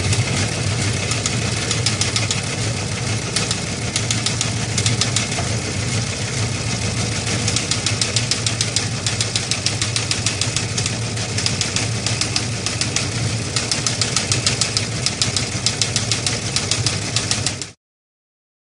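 A machine running steadily, a fast dense clatter of clicks over a low motor hum, which cuts off abruptly near the end.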